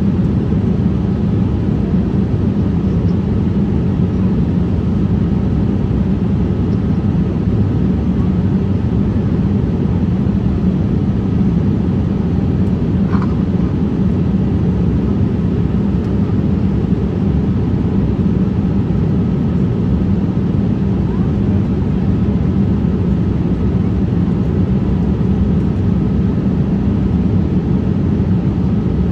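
Cabin noise inside a Boeing 787-8 as it taxis: a steady low rumble from the idling engines and the rolling airliner, with an even hum and a faint high whine running through it.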